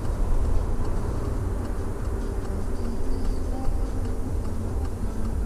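Inside a moving Peugeot 308: steady low engine and road rumble, with a light ticking over it.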